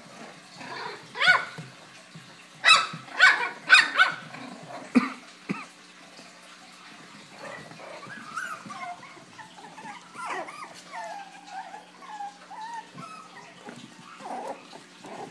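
Bichon Frise puppies yapping during play. A sharp yip comes about a second in, then several quick high yips in a row before the fifth second, followed by softer, wavering whines and yips.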